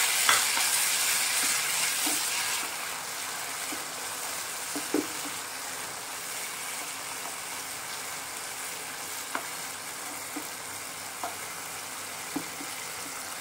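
Chopped tomatoes sizzling in hot oil with fried onions in a non-stick frying pan on high flame, stirred with a wooden spatula that scrapes and taps the pan now and then. The sizzle is loudest at first, as the wet tomatoes hit the oil, and settles to a softer steady hiss after about two and a half seconds.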